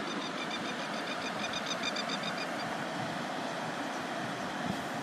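Steady rushing of a river, with a quick run of high repeated chirps, about five a second, over the first two and a half seconds.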